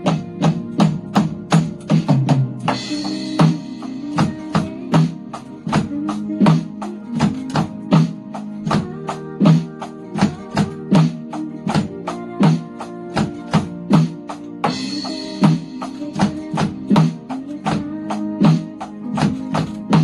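Roland electronic drum kit played along to a recorded guitar-backed pop ballad: a steady beat of sharp strokes, a quick fill about two seconds in, and a cymbal crash about three seconds in and again about fifteen seconds in.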